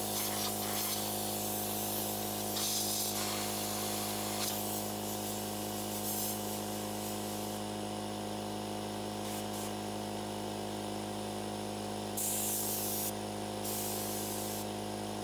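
Compressed air hissing in on-and-off bursts from an air-hose blow gun as it blows dust out of a vacuum-tube television chassis. A steady machine hum runs underneath, and the strongest blasts come near the end.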